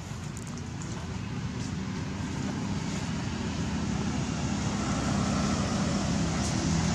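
A low, steady motor rumble, like a passing vehicle, growing gradually louder.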